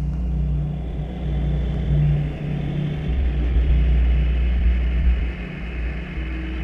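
Industrial ambient electronic music: a deep, loud drone with sustained low tones that shift and drop in and out, and a higher steady tone entering near the end.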